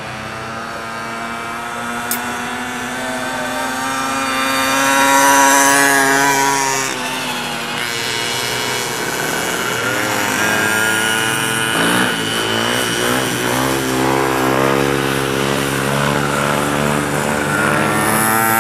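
Small motorcycle engines revving and changing pitch as bikes ride around a track. One passes close about five seconds in, loudest there, its note dropping as it moves away; after that several engines overlap, rising and falling as they accelerate and slow.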